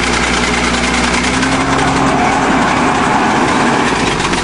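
Bulldozer engine running steadily under load as the dozer climbs a steep hill, with a faint tone that rises slightly and fades about two and a half seconds in.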